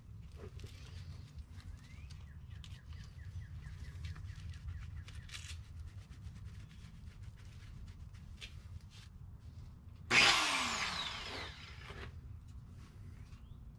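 Angle grinder triggered briefly about ten seconds in, spinning up sharply and then winding down with a falling whine. Before it, only faint clicks of tools being handled over a low hum.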